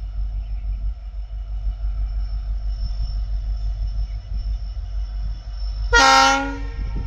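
Low, steady rumble of a WDP4D diesel locomotive and its train approaching, with a short, loud horn blast from the locomotive near the end.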